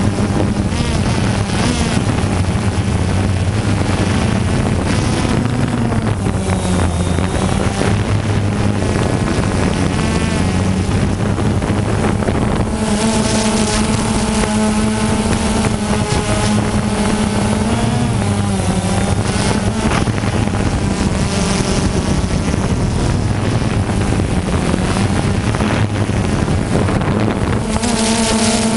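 DJI Phantom 2 quadcopter's electric motors and propellers buzzing in flight, heard from the GoPro mounted on the drone itself. The buzz is steady, its pitch shifting up and down now and then as the motors speed up and slow down.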